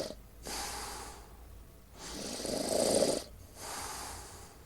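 A person snoring, breath after breath: one louder snore about a second long comes about two seconds in, between quieter breaths.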